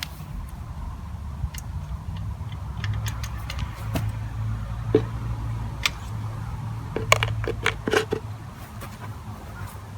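Scattered sharp metallic clicks and clinks of small metal parts and tools being handled during oil-filter work on a motorcycle, coming closer together near the end, over a steady low hum.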